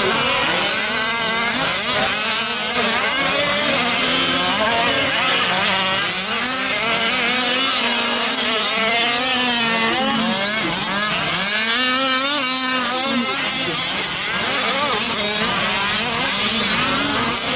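Several 1/5-scale gas RC trucks' small two-stroke engines racing at once. Their overlapping notes keep rising and falling in pitch as they rev up and back off.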